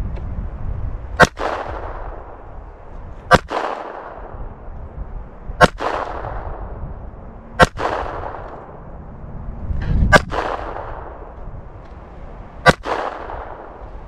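Six shots from a .25 ACP Beretta 21A pocket pistol, fired slowly about two seconds apart. Each is a sharp crack followed by a short echo.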